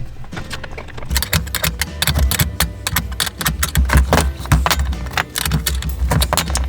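Rapid, irregular clicking and clattering of tools and metal parts being handled during assembly, starting about a second in, over background music with a low beat.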